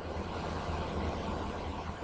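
Steady background hiss with a low hum underneath.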